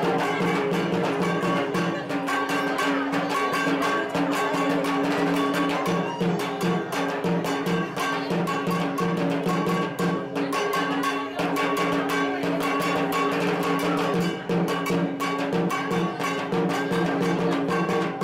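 Music: fast, steady drumming under sustained instrumental tones, without singing.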